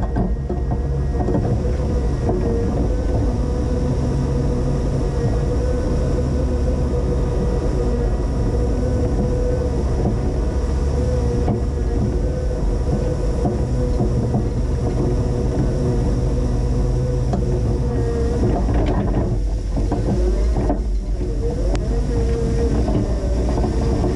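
Linde H20 EVO forklift running steadily, its engine and drive giving a constant drone with a steady whining tone over it.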